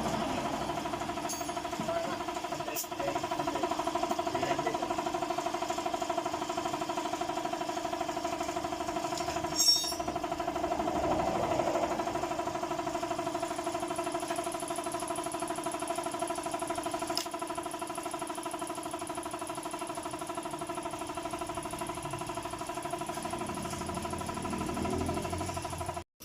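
A motor running at a steady, unchanging speed with a constant hum, with a brief sharp high-pitched noise about ten seconds in; it stops abruptly at the end.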